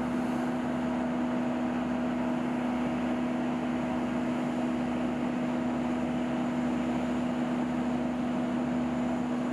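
A crane's engine running steadily, a constant drone with a strong low hum as it lowers a cut treetop.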